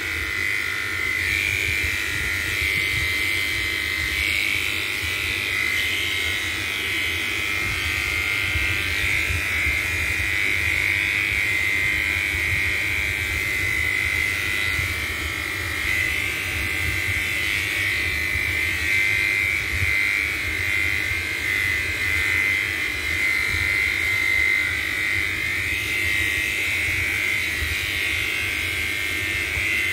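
Electric pet hair clipper running steadily as it clips a cat's fur.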